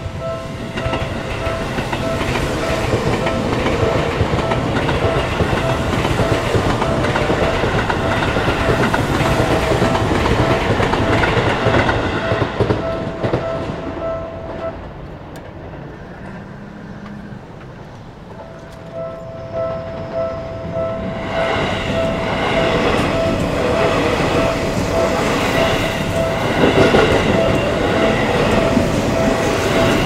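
Japanese railway level crossing's warning bell ringing in a fast repeating ding while electric commuter trains run past over the rails. The bell stops about halfway through and starts again about four seconds later, and a train passes close by, loudly, through the last third.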